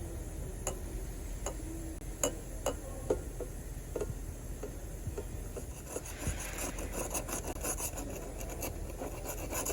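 Scattered light clicks and knocks, then a stretch of rubbing and scraping starting about six seconds in, over a low steady hum.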